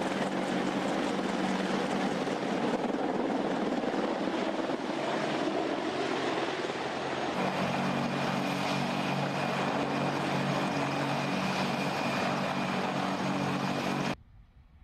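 AH-64 Apache attack helicopter flying low, its rotors and twin turboshaft engines running loud and steady. A steady high whine comes in about halfway through, and the sound cuts off suddenly near the end.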